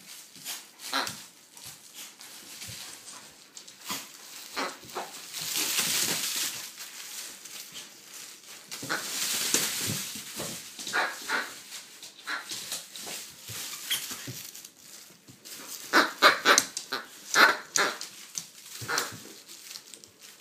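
A dog playing roughly with a plush toy: rustling and thrashing of the soft toy and fleece mat, mixed with short dog vocal noises, and a quick run of the loudest sharp sounds about three quarters of the way through.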